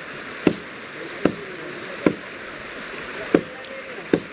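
Chopping wood: five sharp blade strikes about one a second into a log being cut for firewood, each with a short ring, over the steady rush of a flowing river.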